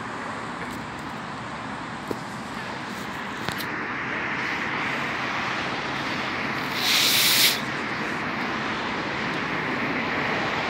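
Boeing 787-9 airliner on landing approach, a distant steady jet rumble that grows slowly louder as it nears. About seven seconds in, a short loud hiss cuts across it.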